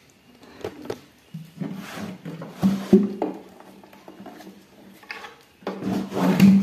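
Audio cable plug being handled and pushed into a live mixer: scraping and clicks, with a steady low buzz that comes in twice, loudest near the end.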